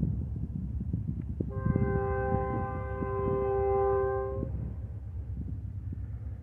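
Diesel freight locomotive's air horn sounding one long chord of several notes for about three seconds, starting about a second and a half in, over wind rumbling on the microphone.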